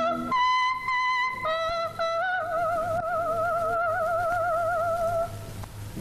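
A soprano singing a melody that settles on one long high note with wide, even vibrato, held for about three seconds before it stops shortly before the end.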